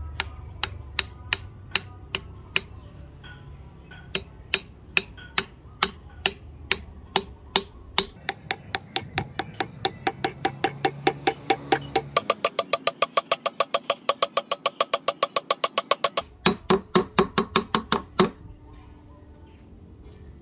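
Steel hammer tapping a wooden wedge into the top of an axe handle seated in a steel axe head: sharp strikes with a short ring to each. They come about two or three a second at first, speed up to a fast run of about seven a second, and stop shortly before the end.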